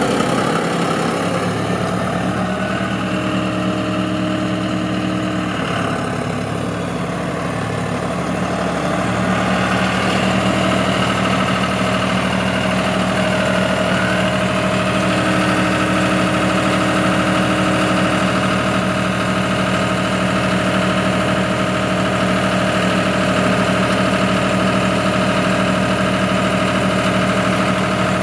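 John Deere 5055E tractor's three-cylinder diesel engine running, its note shifting over the first several seconds before settling into a steady, even idle.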